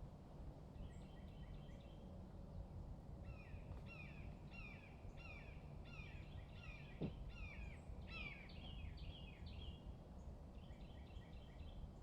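Small songbirds chirping in quick runs of short downward-slurred notes, over a faint low steady background rumble. A single short knock sounds about seven seconds in.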